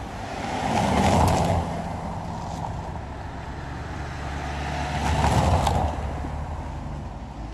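Two cars passing close by on the road, one about a second in and one about five seconds in, each swelling and fading, over a low steady engine hum.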